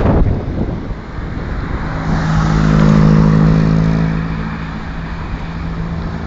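A car overtakes close by, its engine hum swelling to a peak about three seconds in and fading as it pulls away, over wind buffeting the microphone.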